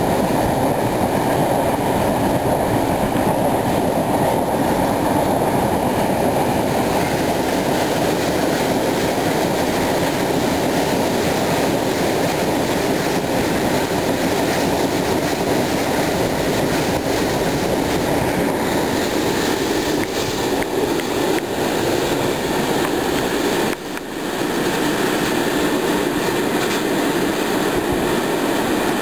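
Freight train of railway tank wagons rolling past close by: steady noise of steel wheels running on the rails. The sound drops briefly once near the end.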